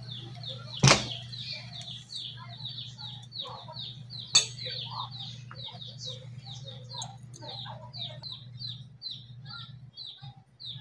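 Two sharp metallic clicks from pliers working a gas stove's metal switch bracket, about a second in and again near the middle. Under them run rapid repeated high bird chirps, about three a second, and a steady low hum.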